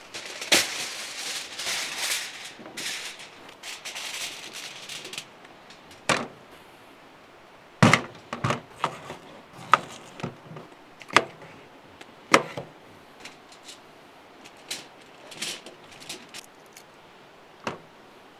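A sheet of heavy-duty aluminium foil being handled and crinkled for about five seconds. Then a kitchen knife chops potatoes on a plastic cutting board, giving irregular sharp knocks of the blade hitting the board.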